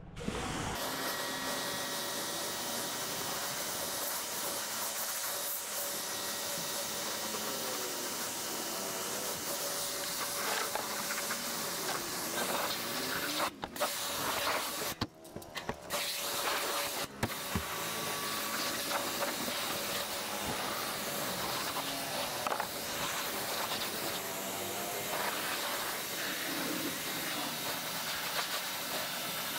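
Pressure washer spraying water in a steady hiss, with the spray cut off briefly a few times near the middle.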